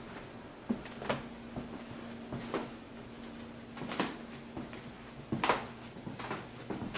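Footsteps on a wooden floor, a knock about every second and a half, the loudest one near the end, over a faint steady hum.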